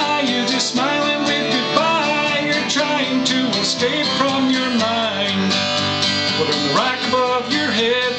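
A man's solo song on steel-string acoustic guitar: steady strumming with his voice over it, the pitch bending up and down.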